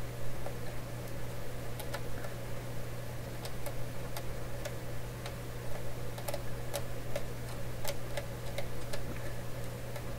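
Small metal pliers clicking and ticking irregularly as they nip and scrape at the string-wrapped end of an old radio wire, several clicks a second, over a steady low hum.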